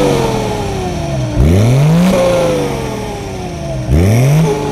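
A car engine revved hard twice, each rev climbing quickly in pitch and then dying away over a second or two.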